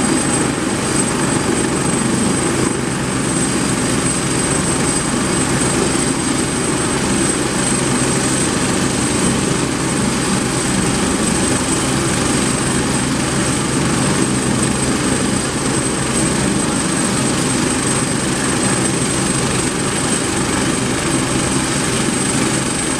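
Airbus H175 helicopter's twin turboshaft engines and rotors running steadily, with a high turbine whine held at one pitch over the lower rotor and engine sound.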